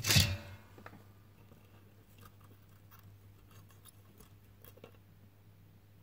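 A brief noisy burst right at the start, then faint, scattered small clicks as fingers bend and handle the cable's ground wire at a quarter-inch TRS jack plug.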